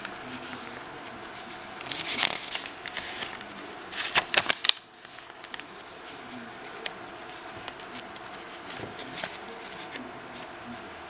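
Crisp paper pages of a handmade journal being turned and handled, crinkling and rustling. There is a louder flurry of crackling about two seconds in and another just after four seconds, then softer rustles.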